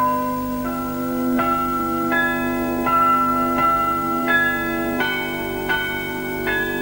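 A slow melody of bell-like chimes, starting with a sharp strike. A new note sounds about every 0.7 seconds, each ringing on over a held low tone.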